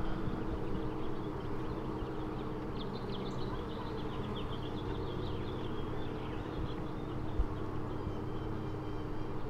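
Honeybee colony humming on an open hive frame, a steady drone, with faint high chirps in the middle.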